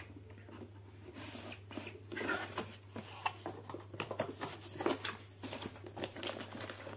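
Cardboard box, paper insert and plastic wrap being handled and opened: irregular rustling, scraping and small knocks, over a steady low hum.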